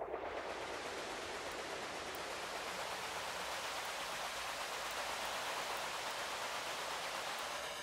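Steady hiss-like ambient wash from audio played through Ableton Live's Vocoder effect, an airy noise texture like rain or static. Near the end, evenly spaced comb-filter notches start to run through the noise.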